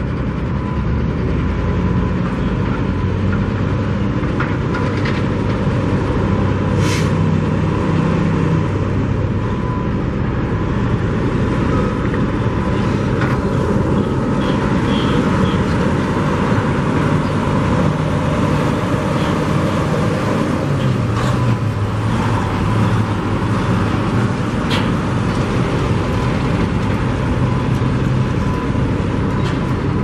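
Heavy truck's diesel engine running steadily over constant traffic and site noise, its engine note dropping lower about two-thirds of the way through.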